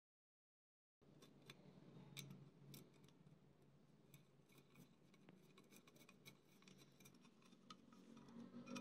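After about a second of dead silence, faint scattered clicks and light metal clinks of small steel bolts, washers and nuts being fitted by hand through a painted sheet-metal fan blade into its hub, with a screwdriver working a screw near the end.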